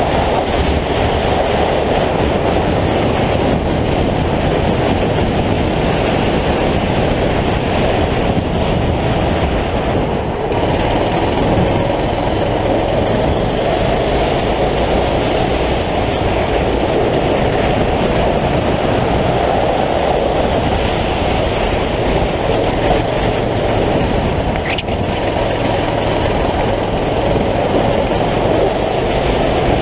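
A 9 hp racing kart's engine running hard at racing speed, a loud continuous drone heard from the onboard camera, with a short rising whine about 25 seconds in.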